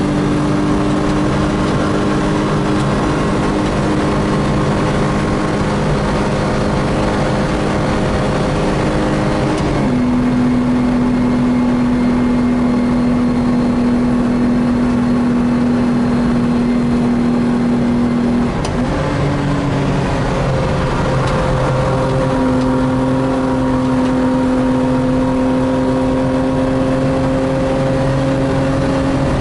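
BMW E28's swapped-in M50B25 2.5-litre straight-six under load, heard from inside the cabin at speed. The engine note drops in pitch about ten seconds in, dips briefly near nineteen seconds, then holds and rises slowly.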